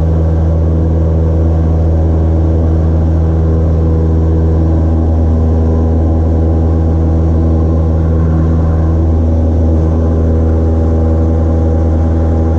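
Single-engine light aircraft's piston engine and propeller droning steadily inside the cockpit as the plane climbs out after takeoff.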